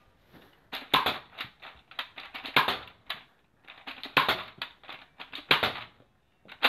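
Nerf Zombie Strike Nail Biter dart blaster being worked to fire: clattering plastic clicks and clacks in four bursts, about one every one and a half seconds.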